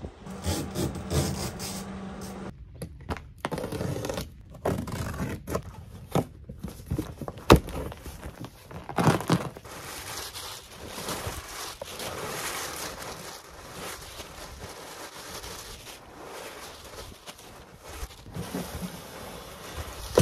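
Crumpled brown packing paper rustling and crinkling as it is pulled out of a large cardboard box, with scrapes and sharp knocks in between; the loudest knock comes about a third of the way in.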